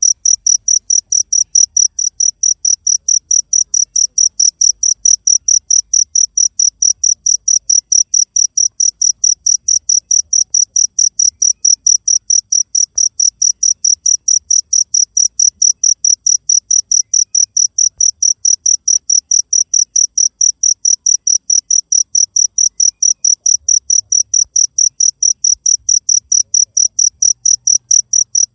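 A cricket chirping steadily, an even run of high chirps at about four a second.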